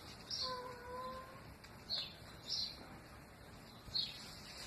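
Small birds chirping: short high chirps every second or two, with one steady pitched note lasting about a second, starting about half a second in.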